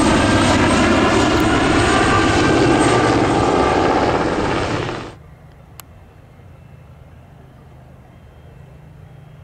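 Super Puma twin-turbine helicopter flying close by: loud rotor noise with a high turbine whine, which cuts off suddenly about five seconds in. Only a faint low hum remains after that.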